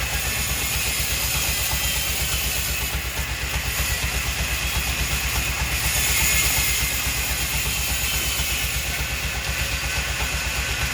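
An engine or machine running steadily, with a rapid, even low pulsing under a constant hiss.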